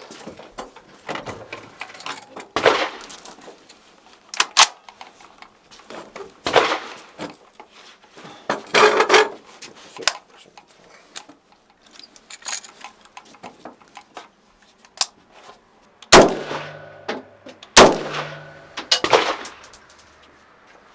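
A series of gunshots at a shooting range, about eight at irregular intervals, some sharp and close and others duller, with ringing after several of them.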